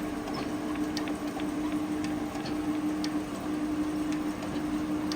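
Jones Shipman 540 surface grinder running with a steady hum, with scattered light ticks as the wheelhead is wound up and down by its handwheel.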